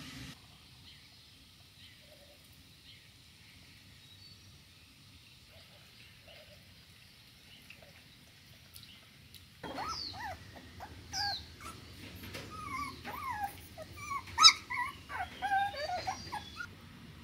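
Little to hear for the first half. Then, from about ten seconds in, young puppies whine and yip in short high cries that rise and fall, several at once near the end, with one sharp loud yelp.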